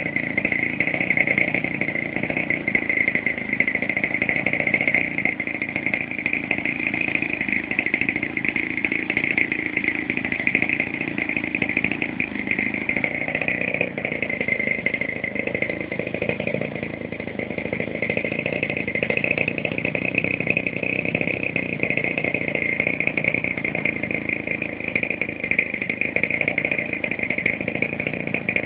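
Fuji 50cc single-cylinder two-stroke petrol engine of a large RC model airplane running steadily, its propeller turning.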